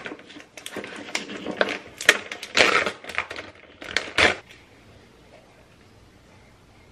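Plastic bag of grated cheese crinkling and rustling in the hands as it is opened and tipped, a run of sharp crackles that stops a little over four seconds in.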